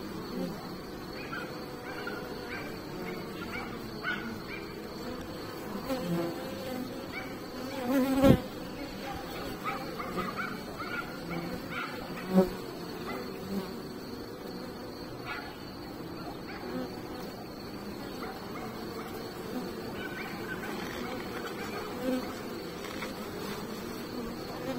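Honeybees buzzing at a hive entrance: a steady hum of many bees, with single bees buzzing past now and then. Two brief louder moments come about eight and twelve seconds in.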